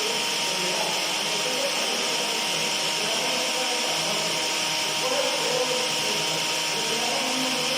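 Electric kitchen blender running steadily at a constant speed, a continuous whirring hiss with a steady hum underneath.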